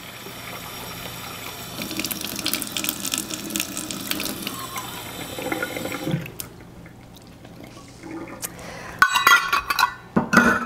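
Water running from a tap into a metal measuring cup and being poured into a mixing bowl, steady for about six seconds. A few clinks of the metal cups follow near the end.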